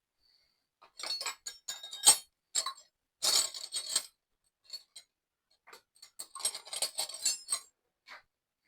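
Metal wrenches and hand tools clinking and rattling in two spells of sharp clicks, the loudest a single clank about two seconds in.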